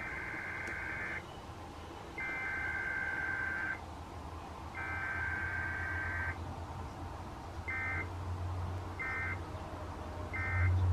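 NOAA Weather Radio SAME digital data bursts for an EAS Required Weekly Test. Three bursts of about a second and a half (the header), then three short bursts (the end-of-message code), over a low hum.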